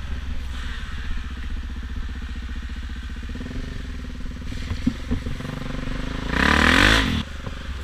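Small off-road motorbike engine running steadily under the rider on a trail ride, revving up sharply about six seconds in and dropping back about a second later.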